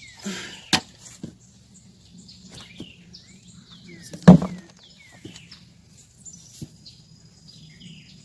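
Digging in garden soil: a brief scrape followed by a sharp knock about a second in and a louder thud about four seconds in, with a few fainter clicks. Birds chirp in short falling calls throughout.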